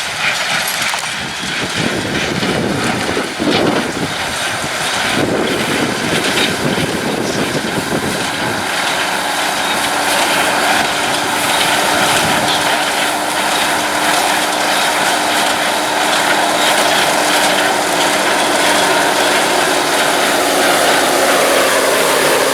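Farm tractor and hay baler running steadily, a machine noise with a steady hum that sets in about a third of the way through.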